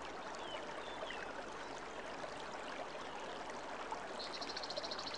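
Steady rush of flowing water, like a stream, with a few faint high chirps and a rapid high trill starting about four seconds in.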